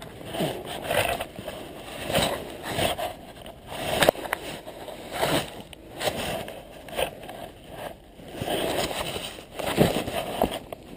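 Wind rushing over a body-mounted camera's microphone during a parachute descent under canopy, rising and falling in uneven gusts, with a sharp click about four seconds in.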